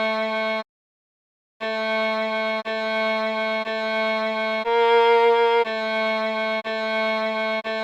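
Viola playing a slow melody of held notes: a short note, about a second's pause, then a string of notes about a second each, mostly on the same low pitch with one higher note in the middle.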